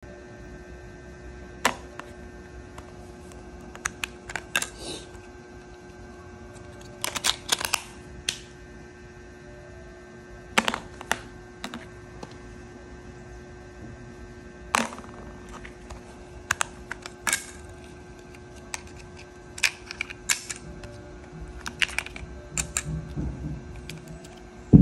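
Irregular sharp clicks and knocks, singly and in quick clusters, over a faint steady hum.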